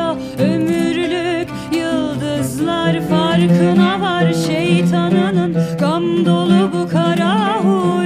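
Music: a slow song passage with a wordless melody full of vibrato over held low accompanying notes.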